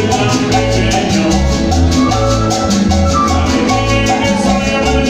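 Live Latin dance band playing a cumbia: a repeating bass line, held keyboard notes and drums, with a shaker-type percussion instrument keeping an even, quick rhythm on top. Little or no singing.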